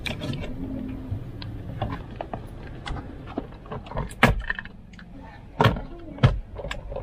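Irregular sharp clicks and knocks of the car's plastic lower dashboard trim panel being handled and pressed on its clips, with three louder knocks about four, five and a half and six seconds in.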